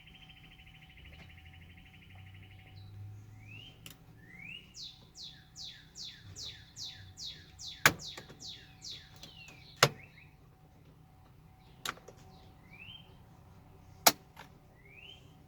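Four sharp plastic clicks and knocks from the car's door trim panel and handle cables being handled, the loudest sounds here. Behind them a bird sings: a buzzy trill at first, then a long run of fast descending chirps, with a few rising slurs near the end.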